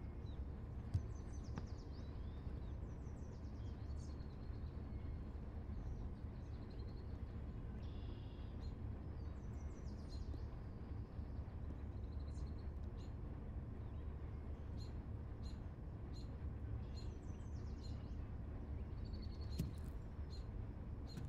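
Outdoor ambience: a steady low rumble with small birds chirping and twittering on and off throughout. A couple of faint knocks come in the first second.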